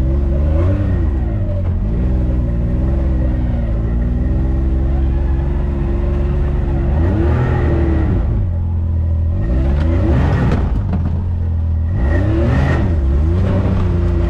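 Can-Am Maverick X3 side-by-side's turbocharged three-cylinder engine running on the move, its pitch rising and falling as the throttle is worked, with quick revs about halfway through and again near the end.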